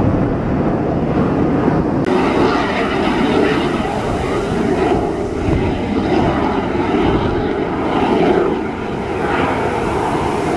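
Aermacchi MB-339 jet trainer's turbojet engine heard passing overhead: a steady, loud rushing jet noise, with a brighter hiss coming in about two seconds in.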